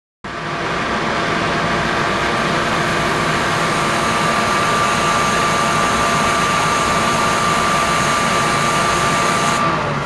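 Steady rushing noise of water circulating through a flow-through ultrasonic cleaning tank running, with a thin steady high tone over it. The hiss starts abruptly and its highest part drops away just before the end.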